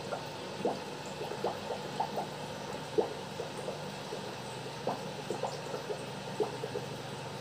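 Aquarium aeration bubbling: air bubbles rising through a goldfish tank and breaking at the water surface, in irregular small plops and gurgles over a steady low hum.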